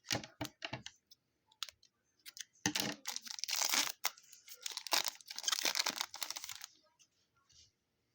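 Trading-card pack wrapper being torn open and crinkled. There are a few short crackles, then two longer tearing rustles about three and five seconds in.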